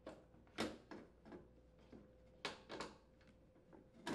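Faint knocks and clicks of metal parts as a Toro mower's transmission and its shaft are slid into place on the deck under the lifted adjustment plate. There are about half a dozen separate knocks, the clearest about half a second in and near the end.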